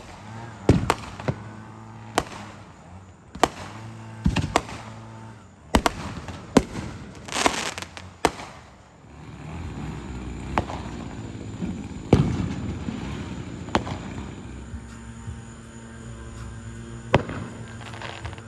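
Fireworks going off: a dozen or more sharp bangs at irregular intervals, with a burst of crackling about seven seconds in.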